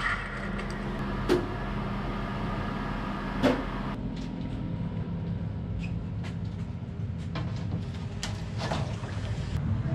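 Handling noise as a large print sheet is lifted and laid into a big wooden darkroom tray: two sharp knocks over a steady low hum in the first few seconds, then scattered light clicks and taps.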